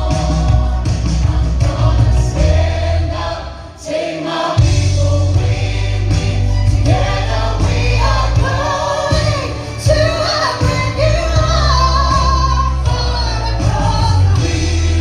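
A choir singing with accompaniment that has a strong bass line. The music thins out briefly about four seconds in, then the voices come back in full.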